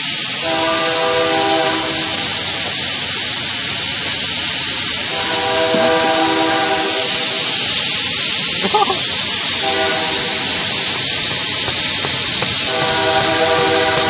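Truck exhaust forced out around a tennis ball and rag jammed in the tailpipe: a loud, steady hiss with a high whistle over it, and a pitched buzz that starts and stops several times as the gas leaks past the plug.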